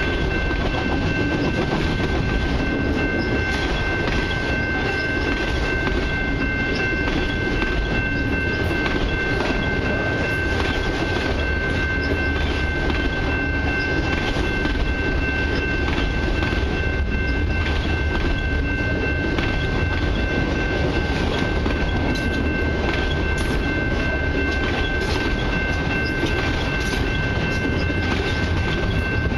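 Long freight train of autorack cars rolling past at close range: a steady rumble of wheels on rail with clickety-clack over the joints. A steady high ringing tone runs underneath throughout.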